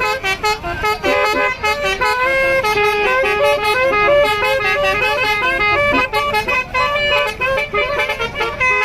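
Bus telolet horn, a set of musical air horns on a bus, playing a quick tune: several notes sound together and step from pitch to pitch several times a second without a break.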